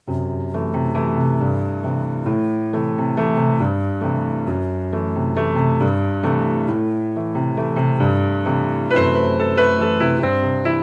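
Music: piano chords over a moving bass line, starting abruptly as a new piece begins, with a higher held note joining about nine seconds in.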